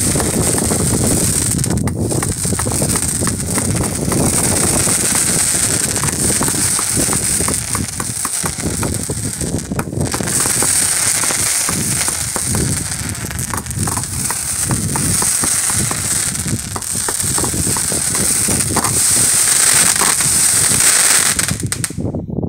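World Class Fireworks 'Motor Mouth' firework cake going off: a continuous, loud barrage of shots launching sparking tails, with dense crackling over a steady high hiss. It pauses briefly about two seconds and ten seconds in, and cuts off suddenly near the end as the cake finishes.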